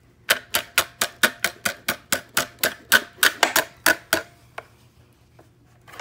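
Dust cartridge and filter of an ILIFE V8S robot vacuum rapidly knocked against a surface to shake the dirt out. About seventeen quick, sharp knocks come at four or five a second for roughly four seconds, then one last tap.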